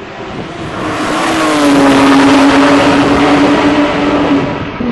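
Porsche 911 GT3 RS flat-six at high revs as the car passes at speed down the straight. It grows loud as it comes on, and its pitch drops as it goes by.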